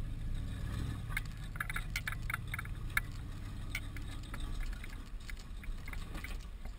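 Off-road 4x4 engine running slowly at low revs while crawling over loose trail rock, a steady low rumble with scattered sharp clicks of rock under the tyres, most of them in the first three seconds.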